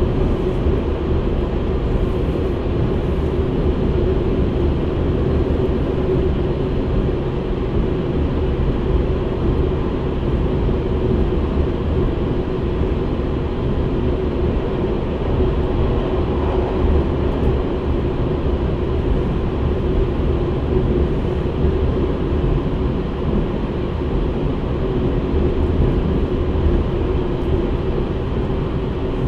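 JR Central 383 series electric train heard from inside a motor car: steady rumble of wheels on rail with a steady tone from the Toshiba GTO-inverter-driven traction motors, the train running at an even speed.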